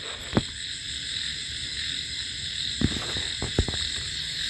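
Night chorus of frogs and insects, a steady high trilling, with a few soft knocks through it.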